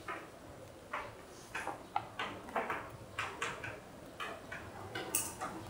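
Chalk scratching and tapping on a blackboard in short, separate strokes as a diagram is drawn, with one brief sharper hiss about five seconds in.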